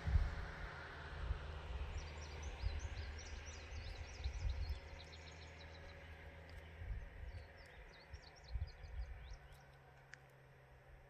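Small birds chirping in quick runs of short high notes from about two seconds in until near the end, over low gusts of wind on the microphone and a low engine hum that fades away during the first half.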